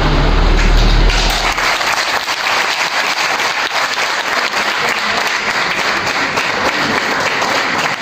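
Audience applauding in a hall, a steady dense clapping that fills in after about a second and carries on to the end. A low rumble comes with the opening second.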